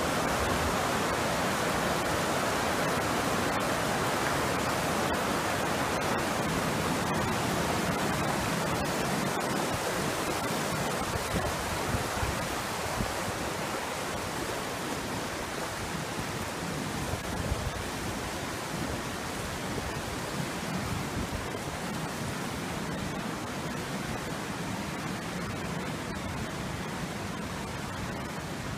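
Floodwater rushing and churning over rocks and debris in a flooded street: a steady, even rush of fast water that grows slowly quieter toward the end.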